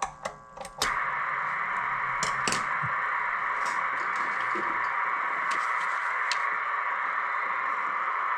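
A few clicks, then about a second in a steady, narrow-band hiss of receiver noise comes up from the Kenwood TS-820S transceiver's speaker and holds, with a few more faint clicks over it.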